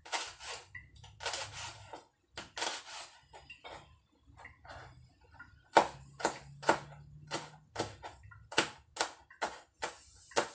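Kitchen knife chopping vegetables on a plastic cutting board: softer, scattered strokes at first, then crisp, steady chops about two a second from about six seconds in.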